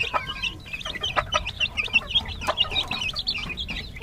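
Native chicken chicks peeping rapidly and continuously in short, high calls while feeding, with sharp taps scattered through as they peck at the clay feed bowl.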